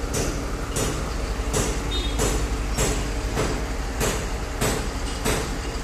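Concrete mixer truck and concrete pump running together: steady diesel engine drone overlaid by a regular hissing clatter that repeats about three times every two seconds.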